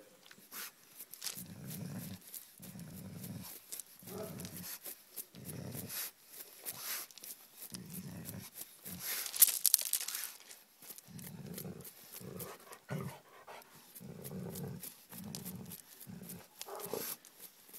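Doberman growling at a curled-up hedgehog in a dozen short, low bouts, with paws crunching on gravel between them. A louder scraping burst comes about nine seconds in.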